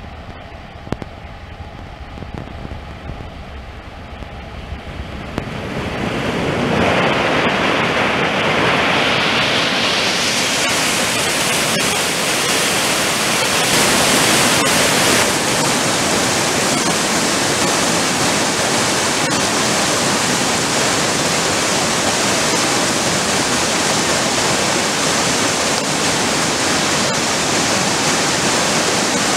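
Floodwater of a swollen river rushing and churning around trees on its bank. It is duller and quieter for the first five seconds or so, then swells about six seconds in to a loud, even rush that holds steady.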